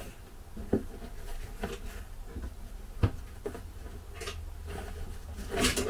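Cardboard shipping box being opened by hand: scattered rustles and light knocks as the flaps are pulled back and the contents handled, with one sharper knock about three seconds in, over a low steady hum.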